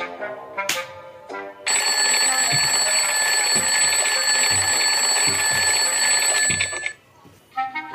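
Soundtrack music with separate plucked or brass-like notes, broken about two seconds in by a loud, continuous ringing bell that holds for about five seconds and cuts off sharply before the music returns.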